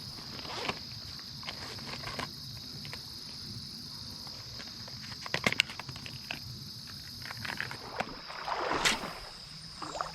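Insects trilling steadily at a high pitch over the low wash of moving water, broken by a few sharp clicks or splashes, the loudest a little before the end.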